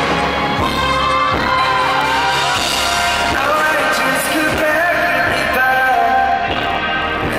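Live pop music in concert: a male lead vocalist singing a melody into a handheld microphone over the band's accompaniment with a steady bass, heard through the venue's PA from the audience.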